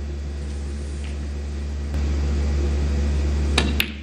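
Snooker balls: two sharp clicks close together near the end, the cue tip striking the cue ball and the cue ball hitting a red. They sound over a quiet arena hush with a steady low hum.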